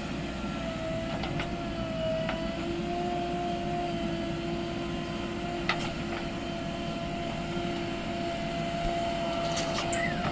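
JCB 3DX backhoe loader's diesel engine running steadily with a constant whine, and a few short sharp knocks, about six seconds in and near the end.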